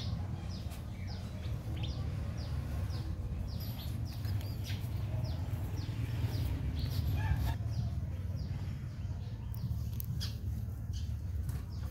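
Small birds chirping: many short, quick, falling chirps, about three a second, over a steady low rumble.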